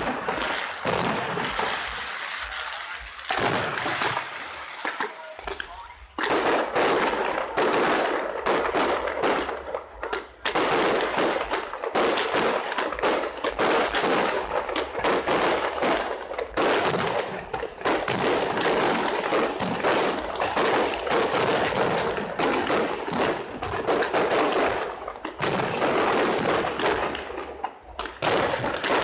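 Fireworks display: sharp bangs and crackling of aerial shells, sparse at first, then a dense, rapid barrage from about six seconds in.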